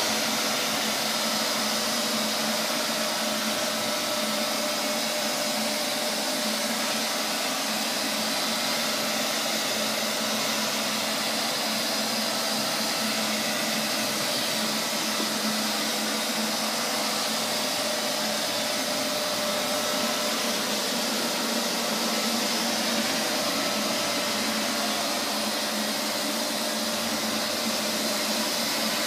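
Neato XV-21 robot vacuum cleaner running, a steady motor whir and suction hiss with a faint, steady whine and no changes.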